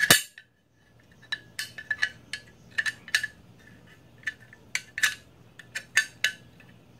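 Small metal parts clicking and clinking against a Mossberg 500 shotgun receiver as internal parts are fitted into it by hand: one loud click at the start, then irregular light metallic clicks, about two to three a second.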